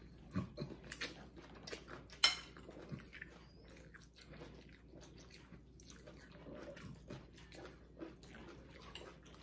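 Noodle slurping and chewing, with forks and spoons clicking against ceramic bowls; one sharp clink about two seconds in is the loudest sound.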